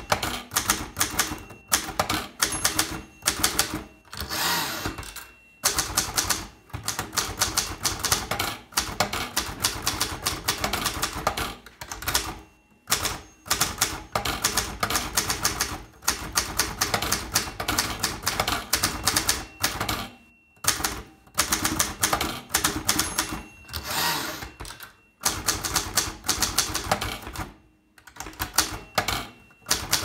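Zeta manual typewriter being typed on: rapid key strikes clacking in runs of a few seconds, broken by short pauses.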